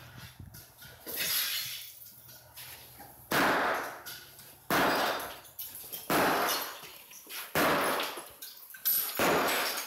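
Sledgehammer smashing ceramic floor tile: six sharp crunching strikes, about one every second and a half, each with a short rattle of shattering tile.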